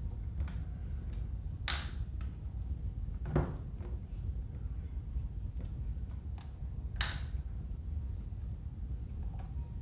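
Parts of an old Arno electric fan being handled during disassembly: three sharp clicks and knocks, the middle one with a dull thud, and a few fainter ticks, over a low steady rumble.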